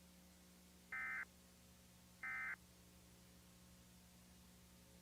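Two short EAS end-of-message data bursts, brief buzzy digital screeches a little over a second apart, closing out the emergency alert. A faint steady hum sits underneath.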